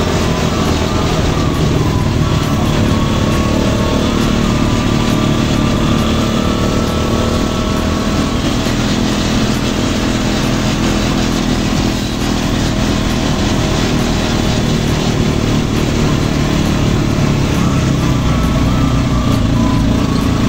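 A small engine running steadily with only small shifts in pitch.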